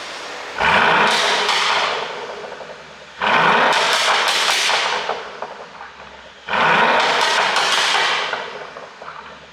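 Mercedes-Benz S500's twin-turbo V8 blipped three times, about three seconds apart. Each blip brings a quick rise in revs and a run of sharp pops and crackles from the exhaust as the revs fall away: the overrun pop-and-crackle of an ECU tune.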